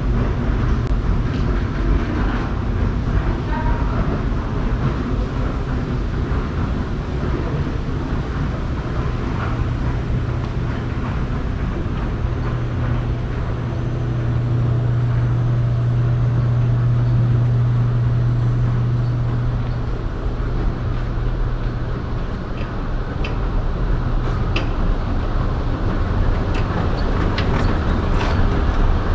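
Steady low machinery hum of an airport terminal interior, from escalators, moving walkways and ventilation, over a background wash of noise. The hum swells for several seconds in the middle, and a few light clicks come near the end.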